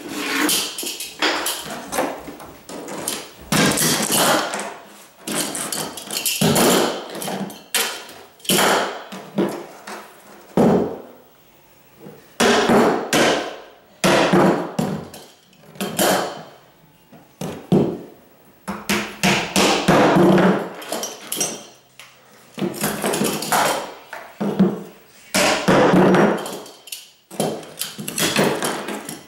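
Hammer driving the nails of wooden carpet tack strip into the floor along the baseboard, in quick runs of sharp blows with short pauses between runs.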